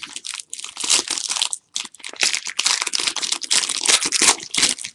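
Foil wrapper of a 2014 Playbook football card pack being torn open and crinkled by hand: a dense run of crackling and tearing with a brief pause about a second and a half in.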